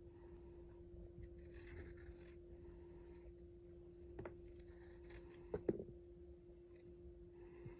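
A small paring knife shaving strips off a raw potato: a few faint slicing strokes, with a few sharp clicks about halfway through, over a steady low hum.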